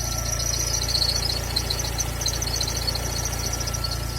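Volkswagen Gol G3 1.0 16V four-cylinder engine idling steadily with a scratching noise ("barulho de coisa arranhando"), which the owner suspects comes from a rotating part inside the engine bay.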